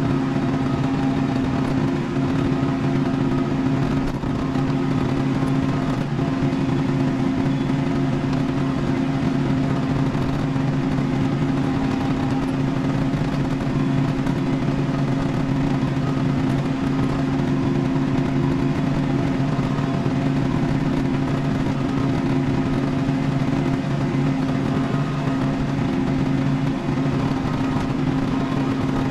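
Kubota tractor's diesel engine running at a steady speed on the road, heard inside the cab as an even, unchanging drone.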